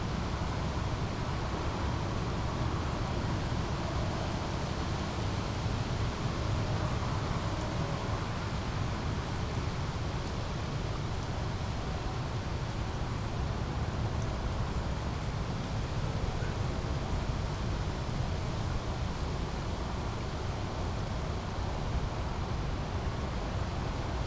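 Steady flowing and babbling of a small brook, with a low rumble of city traffic underneath.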